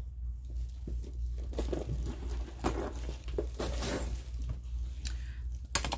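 Handling noise of small items being rummaged and dropped into a leather bucket bag: crinkling packaging and tissue paper with scattered light clicks and knocks, and a sharper click near the end, over a steady low hum.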